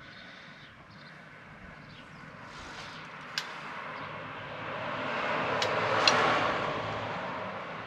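A passing vehicle, its noise swelling to a peak about six seconds in and then fading. A few light metallic clinks come as loose chrome motorcycle mufflers are handled.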